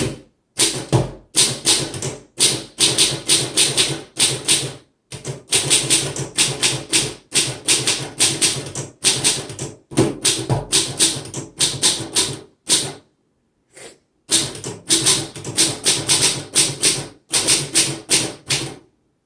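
1935 Underwood Universal manual portable typewriter being typed on: runs of rapid key strikes, several a second, with short pauses about five seconds in and again around thirteen seconds.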